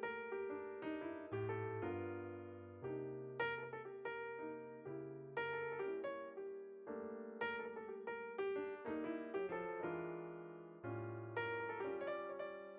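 Background solo piano music: chords and melody notes struck one to two times a second, each ringing and fading.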